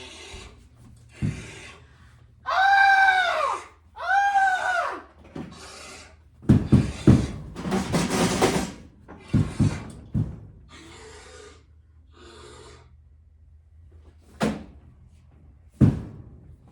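A window screen being clawed and torn: repeated scratching and rasping on the mesh and frame, with two high cries that rise then fall a few seconds in, a longer tearing noise in the middle, and two sharp knocks near the end.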